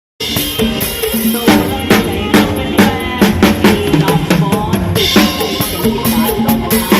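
Isan band music with a drum kit to the fore: a busy beat of kick, snare and rimshot strokes over bass and melodic instruments.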